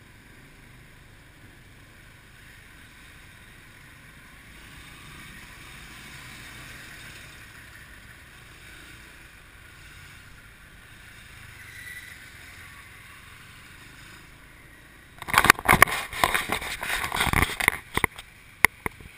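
Steady road and wind noise heard from the back of a moving motorbike taxi. About fifteen seconds in, loud crackling and rustling on the microphone for about three seconds, followed by a few sharp clicks.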